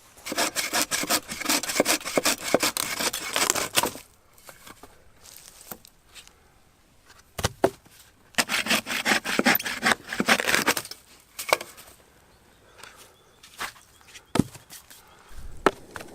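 Two long spells of rough scraping and rubbing, with a few single sharp knocks in between: hands-on camp-setup handling of gear and wood.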